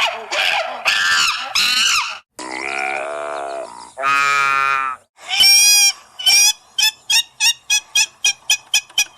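A sequence of different animal calls, one after another. First comes a run of short calls that bend up and down in pitch. Then a low, rough, drawn-out call and a lower, steady call about a second long, followed by a loud call and a series of short calls that come faster and faster near the end.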